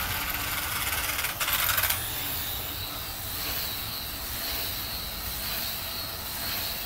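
Tiny electric motor and propeller of a tethered model P-51 Mustang running at low throttle, a brief louder rasp about one and a half seconds in, then a steady high whine as the plane circles the post.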